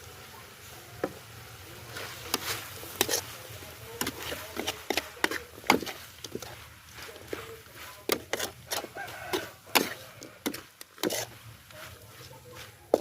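Knife or cleaver chopping on a wooden cutting board: irregular sharp strikes that begin about two seconds in, some close together and some spaced apart.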